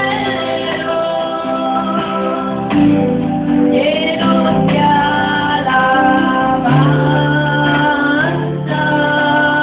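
A song played by a band: a singer over guitar, with drums playing along.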